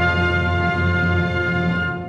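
Orchestral music: one long held chord with brass prominent, starting to die away at the very end.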